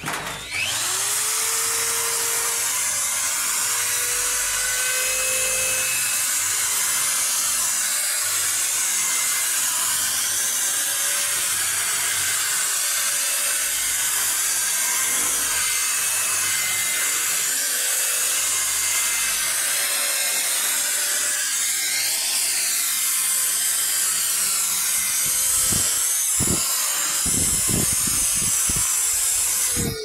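Electric drill with a wire brush spinning up and scouring bare and rusty metal: a steady, loud scraping hiss over the drill motor's whine. There are a few knocks near the end.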